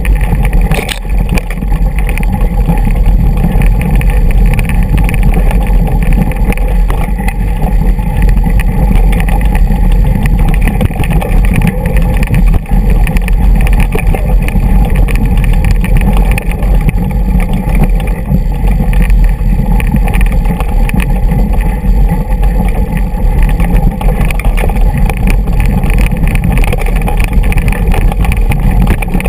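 Continuous loud rumbling and rattling of a mountain bike rolling down a rocky dirt track: tyres over loose stones and the bike jolting, with a deep low rumble underneath.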